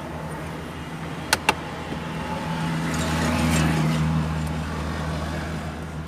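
Steady motor-vehicle hum that swells for a couple of seconds in the middle and then fades, with two sharp clicks in quick succession about a second and a half in.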